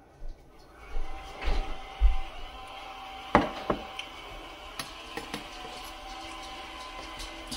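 Scattered knocks and clinks of kitchenware being handled: a plate set down on the counter and a serving spoon knocking in a speckled enamelware roasting pan, the loudest knock about three and a half seconds in. A faint steady hum runs underneath from about a second and a half in.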